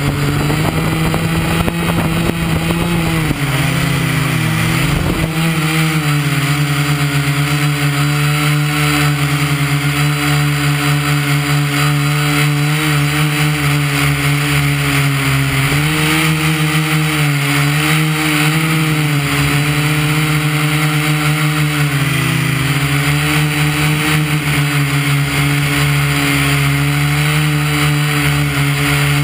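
Multirotor drone's electric motors and propellers humming steadily, heard close up from a camera mounted on the drone. The pitch dips and recovers several times as the drone lifts off, manoeuvres and climbs.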